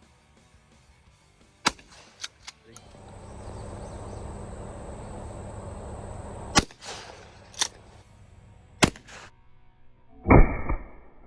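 A series of sharp gunshots at irregular intervals, with a longer, lower, louder blast about ten seconds in.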